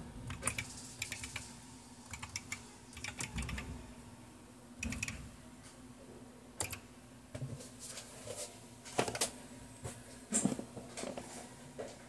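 Typing: irregular runs of sharp key clicks with short pauses between them as a search is typed in.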